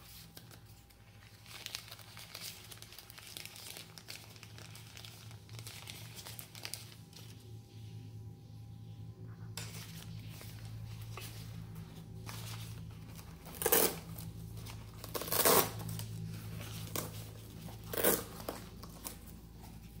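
Thin plastic packaging sheets crinkling and rustling as they are handled, with three louder, sharper crackles in the second half.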